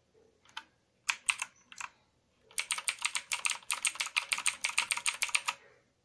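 Redragon K580 VATA mechanical keyboard being typed on: a few separate keystrokes in the first two seconds, then about three seconds of fast, continuous typing, roughly eight keystrokes a second.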